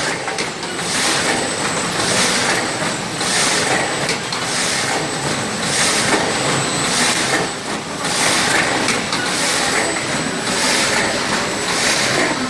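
OPTIMA-1700DS automatic flatbed die cutter for corrugated board running, with a steady mechanical din and a thin high whine. A hissing pulse repeats about every 1.2 seconds, one machine cycle each.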